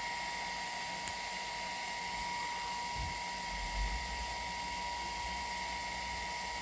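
Toybox 3D printer's cooling fan running steadily with an even hiss and a constant high-pitched whine while the printer heats up.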